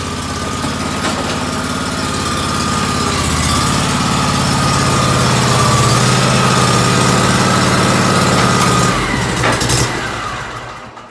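Scag stand-on zero-turn mower's engine running as it is driven in, growing louder as it comes closer, with a steady whine over it. About nine seconds in the engine is shut off and winds down, with a couple of clicks.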